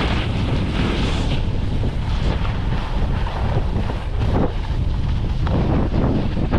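Wind rushing and buffeting over the camera microphone of a snowboarder riding downhill, mixed with the steady hiss of the board sliding over snow. The rush swells and eases every second or so.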